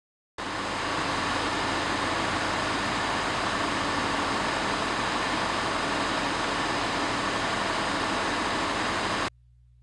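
Steady, loud rushing noise with a low hum underneath, cutting in suddenly just after the start and cutting off sharply near the end; the spot where it was recorded is a noisy one.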